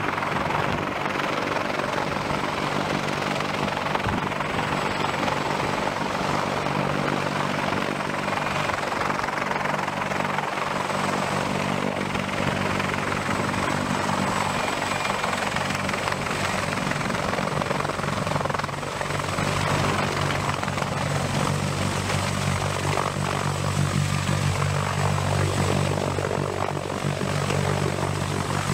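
CH-53E Super Stallion heavy-lift helicopter flying in close and coming down to a low hover: the steady drone of its main rotor and three turboshaft engines, with a thin high whine above it. The low rotor sound grows heavier from about two-thirds of the way through as the helicopter comes close.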